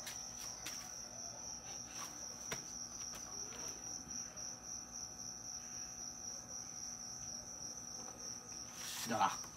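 A cricket chirping in a steady, fast-pulsing high trill, with a few faint clicks in the first three seconds.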